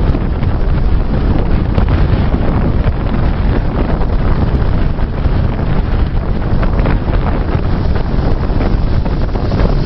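Strong wind buffeting the microphone, a steady loud rumbling rush.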